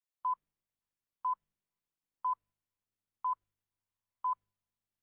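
Five short electronic pips at one steady pitch, one each second, with silence between: the pattern of the Greenwich time signal, the radio 'pips' whose sixth pip is longer.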